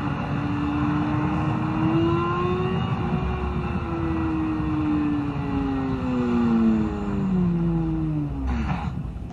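Motorcycle engine running, its pitch climbing slightly and then falling steadily for several seconds as it winds down, over a steady rush of noise. A short burst of noise comes near the end.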